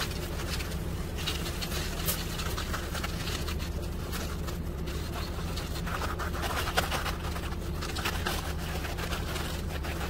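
Concrete mixer truck's diesel engine running steadily while its drum discharges, with intermittent scraping and clicks of hand tools working wet concrete.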